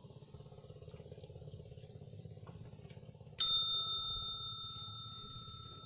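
A small metal bell, the kind clipped to a fishing rod tip, is struck once about three and a half seconds in and rings on, fading slowly. A steady low motor hum runs underneath.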